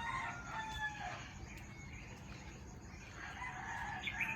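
Roosters crowing: one crow around the start and a second crow near the end, with faint bird chirps in the background.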